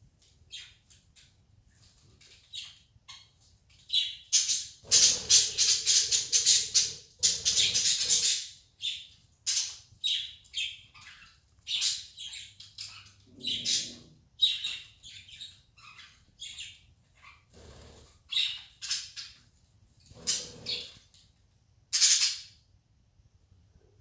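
Pet budgerigars chirping and chattering in short high calls, busiest and loudest from about five to eight seconds in.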